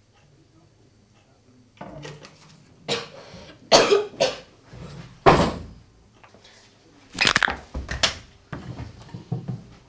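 A young woman coughing and spluttering after swallowing a drink: a run of harsh coughs that starts about three seconds in and comes in bouts until near the end.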